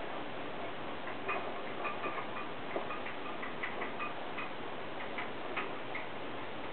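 A steady hiss of background noise with faint, irregularly spaced little clicks and rubs from hands working nylon cord into a knot.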